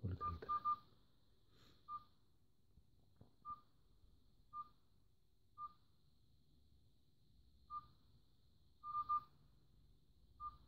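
U8S smartwatch's touchscreen key beep: short single beeps of one high pitch as the screen is tapped, about a dozen in all at uneven intervals, with a quick run of three at the start and a close pair near the end. A few soft handling knocks come with the first beeps.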